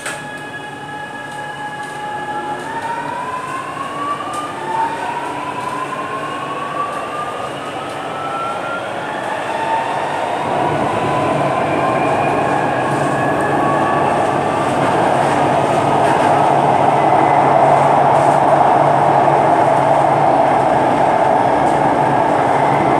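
Chennai Metro train (Alstom Metropolis) accelerating away from an underground station, heard from inside the car. The traction motor whine rises in pitch in several steps over the first ten seconds or so. The rushing rumble of the wheels in the tunnel grows steadily louder as the train gathers speed.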